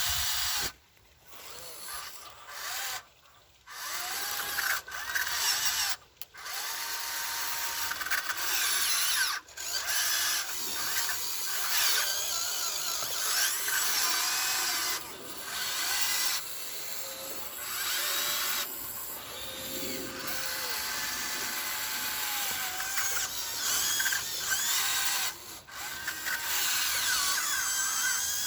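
Electric gear motors of a Huina 1599 RC excavator whining in short runs that start and stop repeatedly, the pitch gliding up and down as they speed up and slow down.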